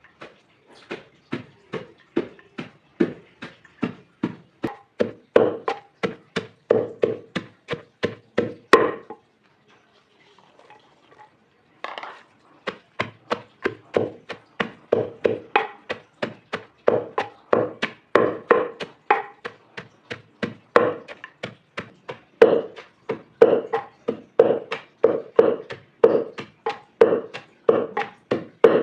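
Knife chopping food on a wooden cutting board in a quick, steady rhythm of about three to four strokes a second. It stops for a few seconds about a third of the way in, then carries on.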